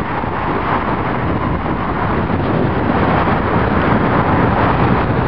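Steady outdoor city street noise: a constant traffic hum with wind on the microphone.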